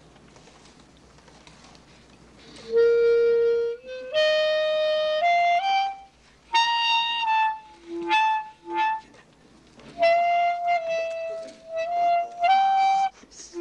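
Solo clarinet playing short phrases of held notes, mostly stepping upward, with brief pauses between them. It comes in about three seconds in, after a hushed start.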